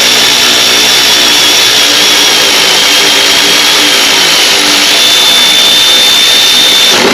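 Power ratchet running continuously, driving the nut onto the idler pulley bolt, with a steady high whine that sags slightly in the middle and comes back up before it cuts off suddenly at the end.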